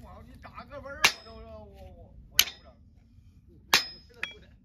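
Farrier's hammer striking the nailed-on steel shoe of a donkey's hoof: three sharp metallic clangs about a second and a half apart, each with a brief ring, then a lighter tap.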